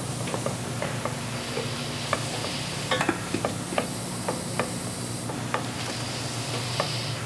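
Irregular light clicks and scraping of a spoon stirring melting caramels in a metal saucepan, over a steady low hum.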